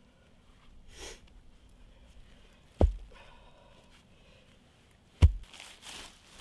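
Two heavy, deep thuds a little over two seconds apart, the second the louder, as a wooden post is set upright in a dug hole and the earth around its base is tamped down. Dry leaves rustle and scuff in between and after.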